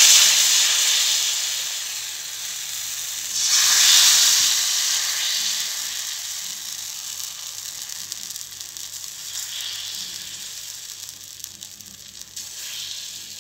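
Thin jowar (sorghum) dosa batter sizzling as it is poured onto a hot dosa griddle. Loud surges of sizzling come at the start and again about three and a half seconds in, each dying down to a softer, fading hiss.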